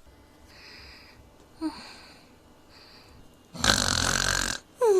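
Cartoon snoring: a few soft breaths, then a loud rasping snore about a second long, followed near the end by an exhale that slides down in pitch.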